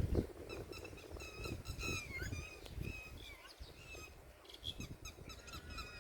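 Many small birds chirping rapidly in short, high, overlapping calls, over the low buffeting rumble of wind on the microphone as a storm comes in.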